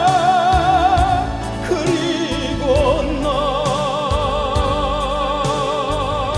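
Music: a tenor voice in operatic style singing long held notes with wide vibrato over an instrumental backing track, the second long note starting about three seconds in.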